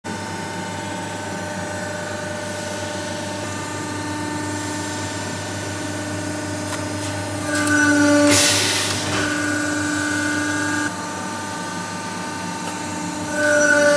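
WC67K hydraulic press brake running with a steady whining hum from its hydraulic pump. About eight seconds in the pitch shifts and a loud hiss swells for about a second as the ram cycles through a bend. A second surge begins near the end.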